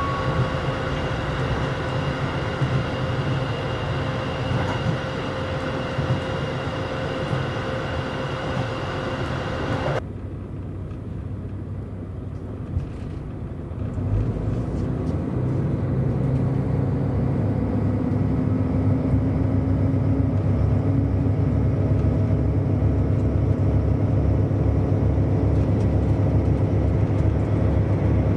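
KiHa 183-series diesel railcar running, heard from inside: a steady running noise with a faint steady tone. About ten seconds in, the sound changes abruptly and turns quieter, then a deep, evenly pulsing low rumble builds and grows louder.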